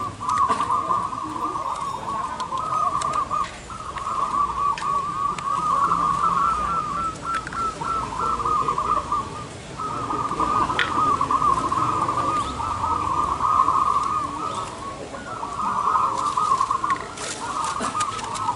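Many caged zebra doves (perkutut) cooing together, their overlapping rolling coos forming an almost unbroken chorus that dips briefly twice.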